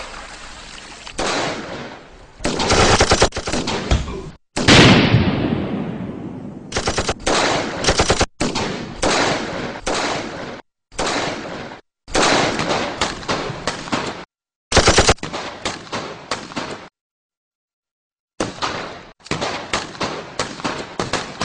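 Film soundtrack of automatic rifle fire in rapid bursts, with single shots between them. About four and a half seconds in comes a louder bang with a long fading tail. The firing stops for about a second and a half near the end, then resumes.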